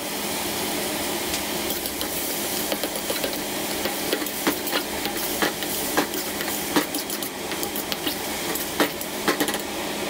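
Metal spatula scraping and knocking irregularly against a wok while octopus and chives stir-fry, over a steady sizzle.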